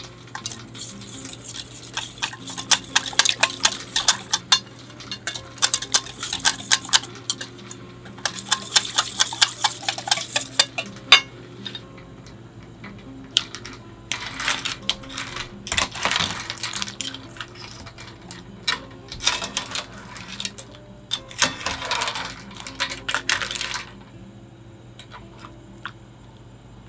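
Miso being worked into dashi broth with a utensil: a dense run of quick clinks and scrapes against the bowl. After a pause come several bouts of stirring in the pot of shijimi clams and broth, with utensil and shell scrapes.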